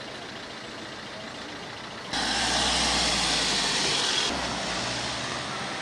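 Ford van's engine running with tyre and road noise as it drives off close by, coming in suddenly about two seconds in over a low background. The loud hiss falls away a couple of seconds later, leaving the low engine hum.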